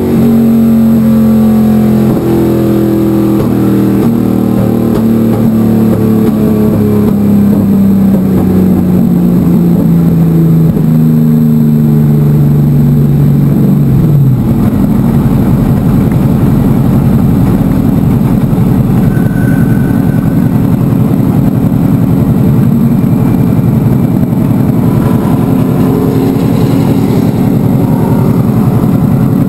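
NASCAR stock car's V8 engine heard from inside the car at speed: its pitch falls steadily over about the first half, then it turns into a rougher, steady sound for the rest.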